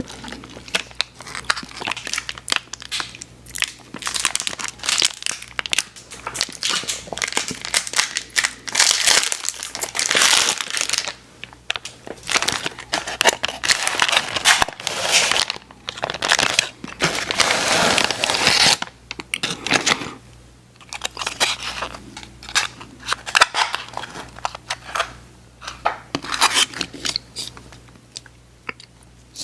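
Candy packaging crinkling and tearing close to the microphone, in bursts separated by short pauses.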